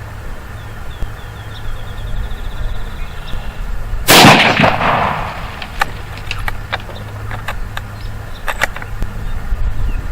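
A single shot from a Ruger American bolt-action rifle in 5.56 firing a .223 round, about four seconds in, with a short echoing tail. A few light clicks follow over the next few seconds.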